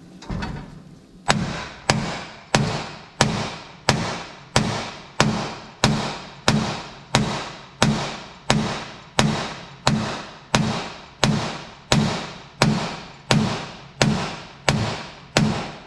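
Metal hammer pounding the end of a rust-seized steering spindle on a John Deere 175 riding mower, driving it down through the axle. About twenty hard, ringing steel-on-steel blows come at an even pace, roughly three every two seconds.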